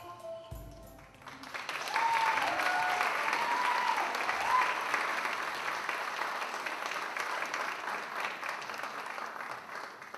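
Audience applauding, swelling about a second in after the last notes of the music and holding until near the end, with a few voices whooping in the first few seconds of the clapping.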